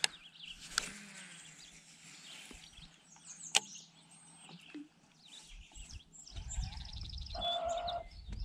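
Small birds chirping and twittering, with a few sharp clicks. In the last two seconds there is a low rumble and a short run of rapid, evenly spaced ticks.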